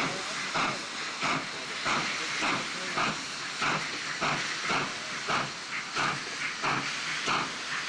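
4-8-2 steam tender locomotive, very similar to the South African Railways Class 19D, working slowly with a train of coal wagons. Exhaust beats come about two a second over a steady hiss of steam.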